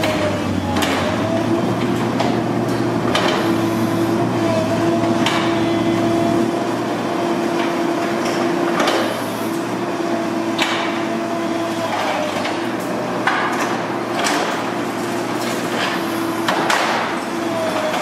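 Demolition excavator running with a steady hydraulic whine that dips briefly now and then, while building material cracks and falls in irregular heavy knocks every second or two.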